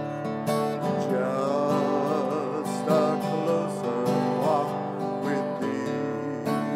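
Acoustic guitar strumming chords in a steady rhythm. From about a second in until past the middle, a higher melody line with vibrato rises above the strumming.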